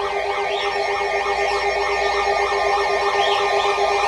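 Electronic siren-style alert tone warbling rapidly up and down about five times a second over a steady tone that cuts off near the end: an alert going off for a severe thunderstorm warning.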